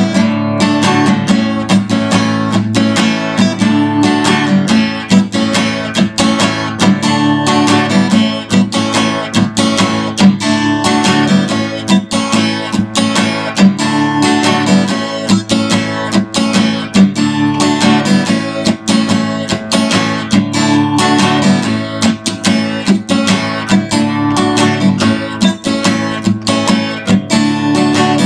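Acoustic guitar strummed in a steady rhythm, cycling through a repeating chord progression.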